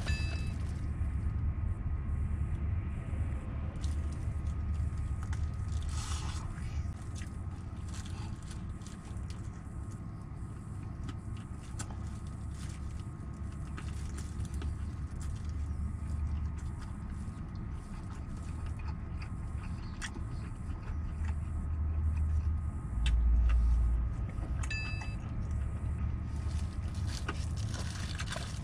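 Fried chicken being bitten and chewed, with small crunches and plastic-glove rustles, over a steady low rumble of an idling truck engine. A louder low thud comes about three-quarters of the way through.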